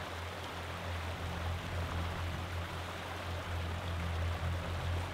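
Rushing water of a shallow, rocky river flowing over stones, a steady even wash, with a low steady hum underneath.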